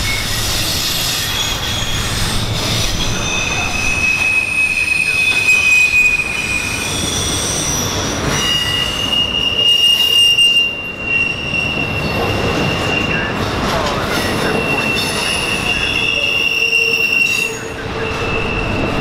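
Freight train's steel wheels squealing against the rails as the cars roll past, over the steady rumble of the train. Several high squeals come and go, overlapping, with one held for several seconds in the middle.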